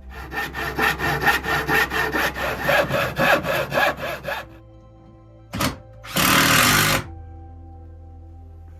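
Hand saw cutting through wood, rapid even strokes about four to five a second for roughly four seconds, then a brief scrape and a one-second burst of noise. Background music plays underneath.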